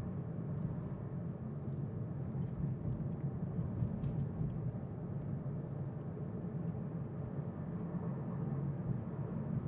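Steady road and tyre noise inside the cabin of an electric car driving along a city street.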